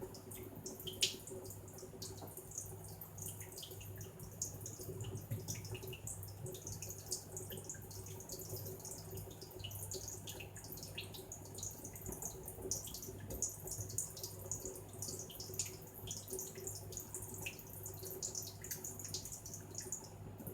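A budgie splashing in a small pool of water cupped in a hand: many short, irregular splashes and drips, over a steady low hum.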